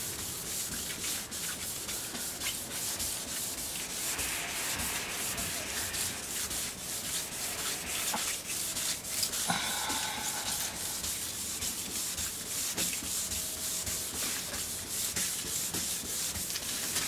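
Fine wet-and-dry paper on a hand pad rubbing back and forth over the wet clearcoat of a car's boot lid: steady rubbing with quick, light strokes. The lacquer is being wet-sanded flat to take out orange peel.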